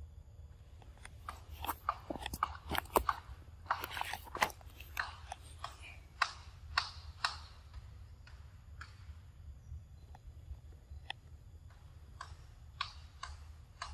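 A macaque chewing and biting into a ripe mango at close range: a quick run of smacking clicks in the first half that thins to a few scattered ones later.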